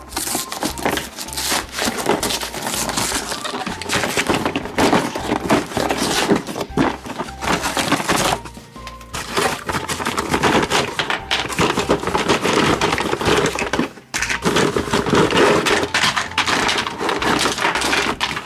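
Cardboard toy box being torn open by hand: tearing, crackling cardboard, with plastic track pieces knocking as they are pulled out. There is a brief pause about halfway.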